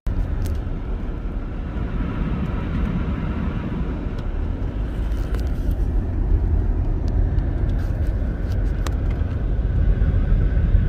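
Car driving along a road, heard from inside the cabin: a steady low rumble of tyres and engine that grows slightly louder toward the end, with a few faint ticks.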